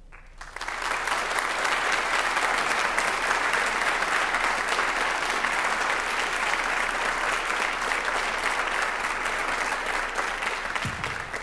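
Audience applauding. The applause starts about half a second in, holds steady, and dies away near the end.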